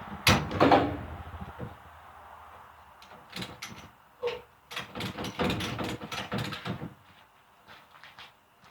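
A refrigerator being shifted and lowered off a stack of other fridges: two loud bangs about half a second apart right at the start, then after a lull an irregular run of knocks and scrapes for about four seconds.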